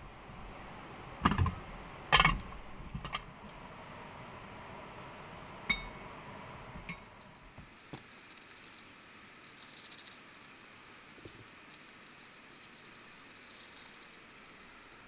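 Hard objects being handled: a handful of knocks and clinks in the first seven seconds, the loudest two about a second and two seconds in, and one near six seconds ringing briefly like metal or glass. After that only a faint steady hiss remains.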